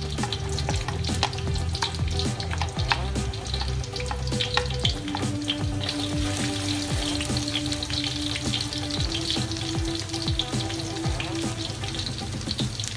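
Chopped garlic sizzling and crackling steadily in hot oil in an aluminium wok, stirred now and then with a wooden spatula.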